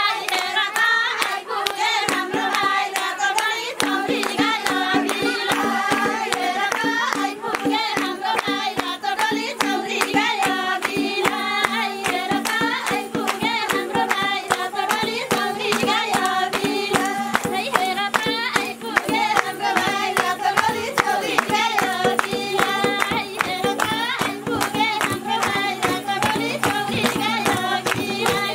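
A group of women singing together to steady, rhythmic hand-clapping. A steady low tone sits under the singing from about two seconds in.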